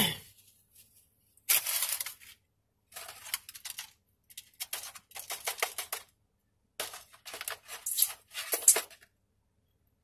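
Paper food wrapper being handled, rustling and crinkling in four bursts with short pauses between.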